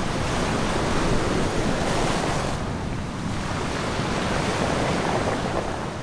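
Ocean surf: a steady wash of breaking waves that begins to fade out near the end.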